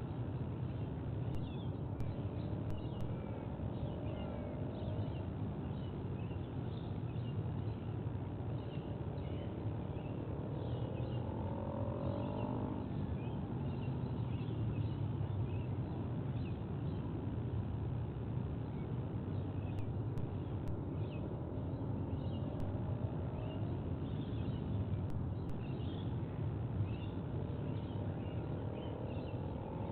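Outdoor ambience: a steady low rumble under small birds chirping throughout, with a few short gliding calls now and then.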